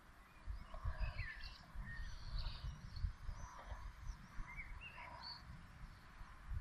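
Small birds chirping and singing in short, scattered calls, over a low, uneven rumble.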